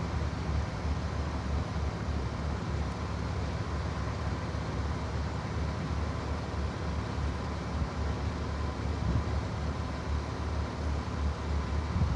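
Steady low mechanical rumble with no distinct events.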